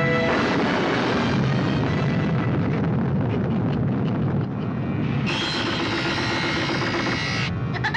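Cartoon soundtrack: a steady rushing roar of sound effects under orchestral music. It gets louder and brighter about five seconds in and drops back shortly before the end.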